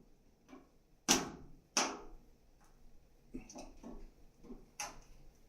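Handling clatter from work on a dryer's cord hookup: a few sharp clicks and knocks, the loudest about a second in and again just under two seconds in, another near the end, with softer taps between.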